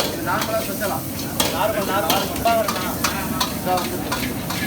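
A metal ladle clanking and scraping against a wok as a large batch of fried rice is stirred and tossed, over continuous sizzling. The clanks come irregularly, several a second.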